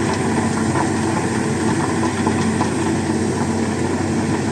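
Heavy construction-machine engine running steadily at a constant low drone.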